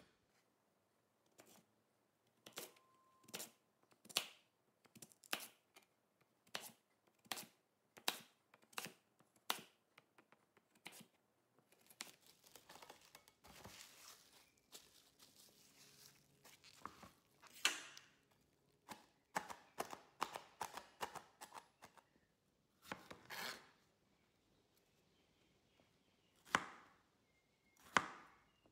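Steel cleaver slicing through a sweet potato on a plastic cutting board, each cut ending in a sharp knock of the blade on the board, about two a second. There is a stretch of soft rustling near the middle. Near the end come a few slower, single cuts through a strawberry.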